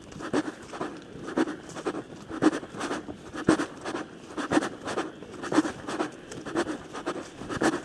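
Footsteps walking at a steady pace, about two steps a second, each step a short scratchy crunch on the ground.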